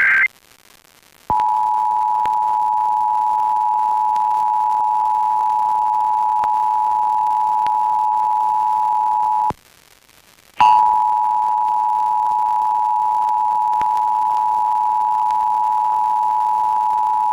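Emergency Alert System two-tone attention signal (853 Hz and 960 Hz sounded together) received over FM radio, marking a Required Monthly Test. It comes in about a second in, holds steady for about eight seconds, stops for about a second, then sounds again for about eight more seconds.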